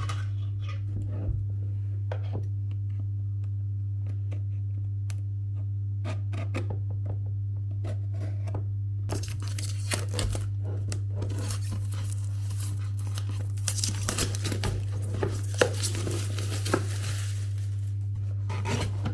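Cardboard and plastic packaging of a hair dryer being torn open and crinkled by hand: scattered rustles and clicks, busiest from about halfway through. A steady low electrical hum runs underneath.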